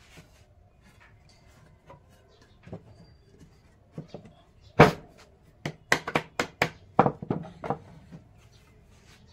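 Hammering on wood: a few light taps, then one hard strike, then a quick run of about ten blows, roughly four a second.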